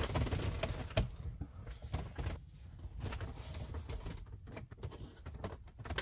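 Small plastic push-pin cap covers being prized out of car console trim by fingers: faint scattered clicks and rubbing of plastic, over a low steady rumble.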